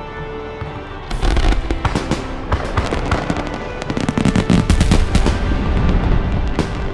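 Fireworks crackling and popping in rapid strings of sharp cracks with a low rumble under them. The crackling starts about a second in and thins out near the end. Background music with held tones plays throughout.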